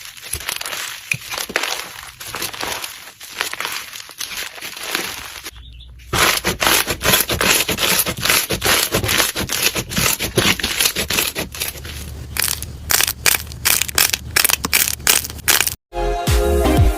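Slime being squeezed and pressed, giving a dense run of crackles and crunches. After a short break a little before halfway, the crackles and clicks come louder and sharper. Music with a steady beat starts near the end.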